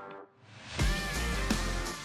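Background music with a beat: it dips briefly near the start, then comes back in with a steady low pulse and a held melody line.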